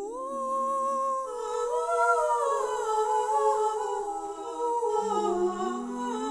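Several overlapping wordless voices humming, holding notes and sliding from pitch to pitch in slow shifting harmony: the sound of the singing sculptures installation.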